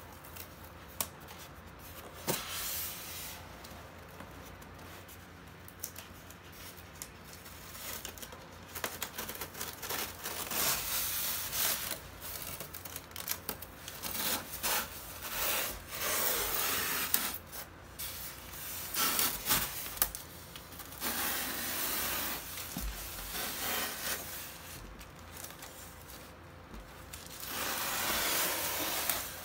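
Expanded polystyrene foam shipping case being opened by hand: the foam lid and box rub and scrape against each other in irregular stretches, louder and longer from about a third of the way in.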